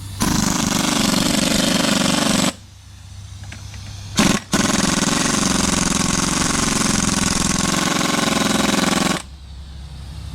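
Air impact wrench hammering in two long bursts, about two seconds and then nearly five seconds, with a short blip between them.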